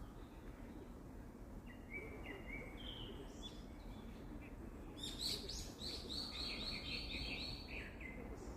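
Wild songbirds singing: a few short high whistled notes in the first half, then about halfway in a louder song of quickly repeated notes lasting about three seconds, over a steady low background hiss.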